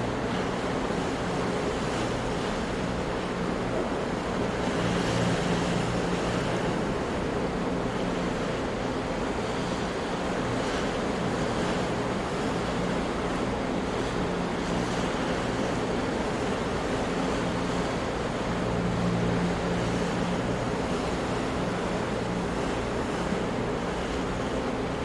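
Big ocean waves crashing on rocks: a continuous rushing surf that swells louder twice as larger waves break.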